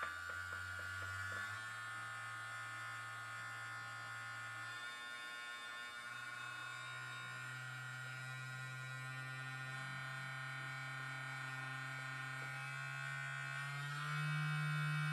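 Small vibrating-toothbrush motor, hot-glued to a foam boat hull and speed-controlled by radio, buzzing steadily. Its pitch steps up about a second and a half in and again about five seconds in, then rises once more and gets louder near the end.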